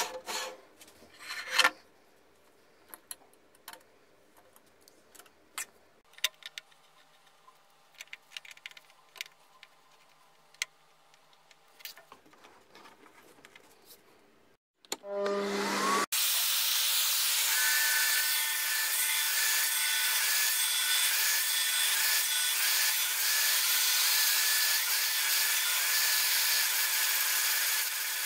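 A few knocks and light clicks as metal and wooden parts are handled on a bandsaw table. After about 15 seconds a short rising whine leads into a loud, steady run of a vacuum extractor drawing dust from the bandsaw's housing while the bandsaw cuts wood.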